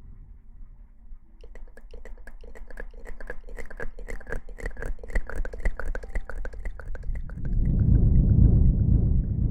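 Close-miked ASMR trigger sounds: a fast run of light clicks, about five a second, for several seconds, then loud, muffled rubbing and rustling against the microphone near the end.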